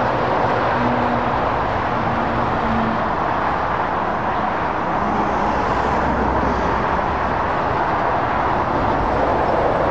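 Steady motorway traffic: the continuous tyre and engine noise of cars and articulated lorries travelling at speed, with a faint engine hum underneath.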